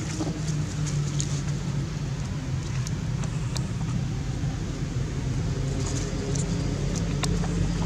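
A steady low mechanical hum, like an engine running, with a few brief faint clicks scattered through it.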